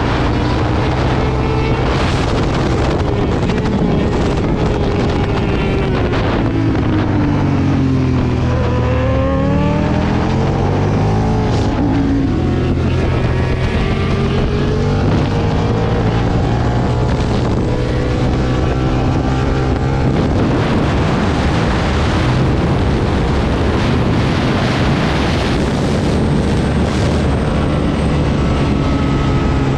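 Aprilia Tuono 1000 V-twin motorcycle engine at speed on a race track, heard from on board with wind rushing past. Its pitch falls about seven to nine seconds in as the bike slows and downshifts, then climbs again under acceleration.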